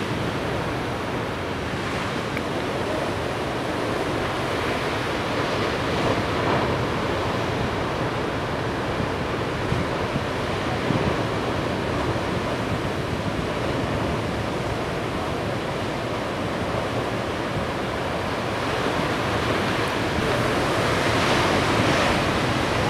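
Large ocean waves breaking: a continuous wash of surf that swells louder near the end.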